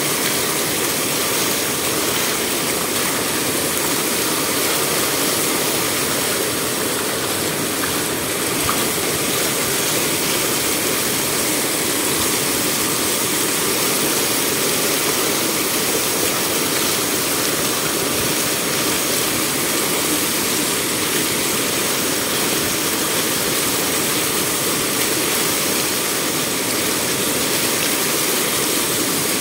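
Loud, steady rushing of a sheet of water pouring over the stone lip of a water gate and falling into churning water below.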